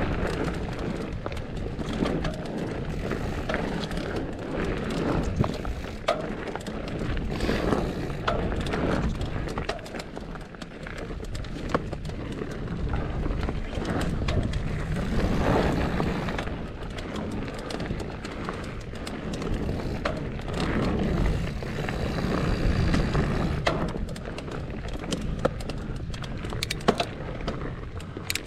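Mountain bike descending a rough dirt trail: steady tyre and rolling noise, with many quick rattles and knocks from the bike over bumps.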